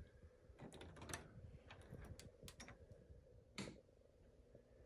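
Near silence with faint clicks and taps of a wooden door being opened by its brass knob, the latch and knob clicking about a second in, and a slightly louder tap about three and a half seconds in.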